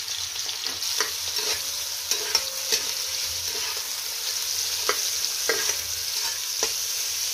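Sliced onions sizzling steadily in hot oil in a kazan, just put in and starting to fry, with occasional sharp clicks of a utensil against the pot as they are stirred.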